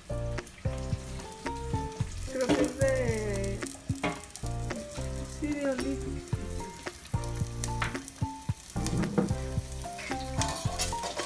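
Chopped food frying in oil in a stainless steel pan, a steady sizzle with small crackles. Music with steady notes and bass plays over it.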